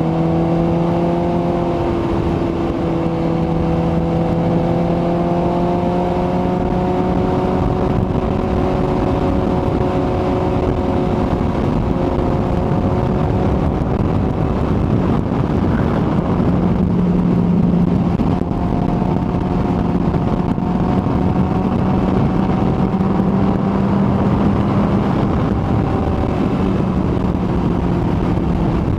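Kawasaki ZX-14R inline-four motorcycle engine running at a steady cruise, its note holding nearly level with slight rises and falls, under constant wind rush. The engine tone drops back about halfway through and picks up again a couple of seconds later.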